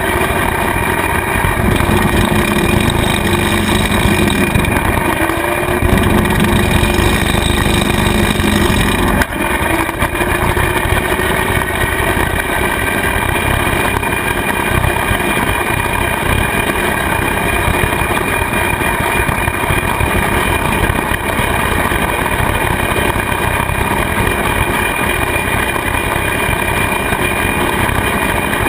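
Kubota tractor's diesel engine running steadily while driving a rotary cutter (bush hog) that is mowing pasture grass. The sound dips briefly and changes about nine seconds in.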